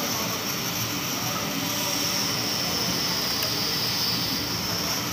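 Steady mechanical background noise: a constant hiss and hum with a high steady whine, and one faint click about three and a half seconds in.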